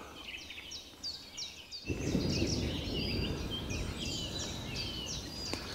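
Woodland songbirds singing, many short repeated phrases, with a low rumble of distant thunder setting in suddenly about two seconds in and carrying on under the birdsong.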